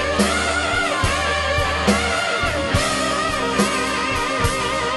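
Rock band's recorded song: an electric guitar lead with bent, wavering notes over sustained bass and a steady drum beat, with a hit a little under a second apart.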